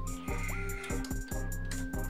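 Background music with a steady beat and held synth notes.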